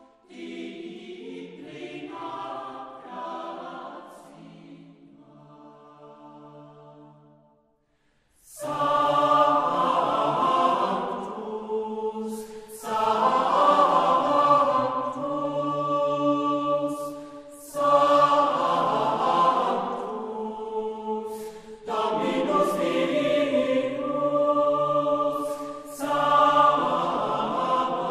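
A choir singing a slow sacred chant in long held notes. It is softer for the first few seconds, then after a brief pause comes back fuller, in phrases of a few seconds each.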